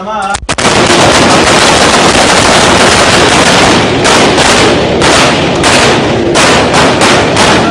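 Many military rifles firing together down a range line: rapid shots overlap into one continuous volley, loud enough to overload the recording. It starts about half a second in, and in the second half individual shots stand apart.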